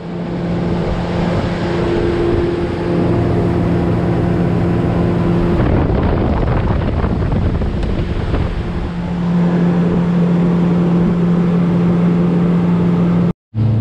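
Outboard motor of a small trailer boat running underway: a steady engine hum with the rush of wind and water over it. The sound breaks off briefly near the end.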